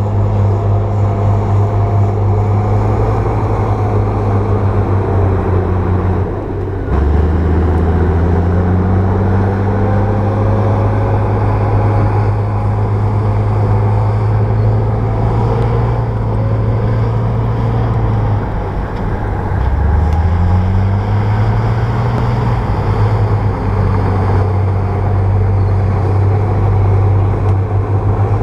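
Bulldozer's diesel engine running steadily under work. Its pitch drops sharply twice, about six seconds in and again near twenty seconds, then climbs back up.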